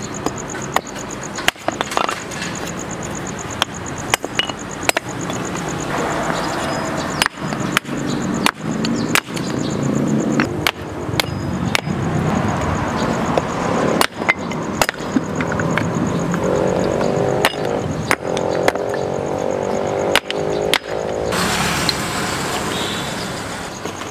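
A metal spatula clanking and scraping against a wok while noodles are stir-fried, with sharp irregular strikes about once a second over steady frying noise. A brighter hiss comes in near the end.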